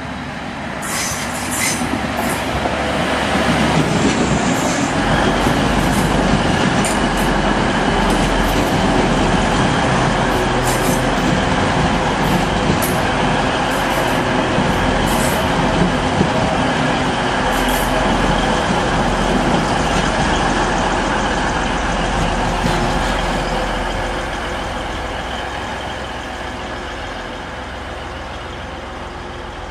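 Diesel passenger train approaching and running past along the rails. It grows loud within the first few seconds, holds steady while the coaches pass, then fades away over the last several seconds.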